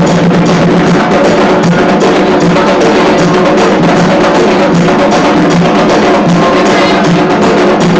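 Ceremonial hand drums, likely atabaques, played in a loud, fast, continuous rhythm of rapid strokes, with held tones sounding beneath the drumming.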